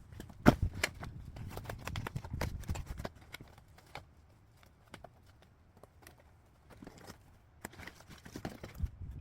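Irregular light clicks and knocks, close together for about three seconds, then a quiet stretch and a few more near the end.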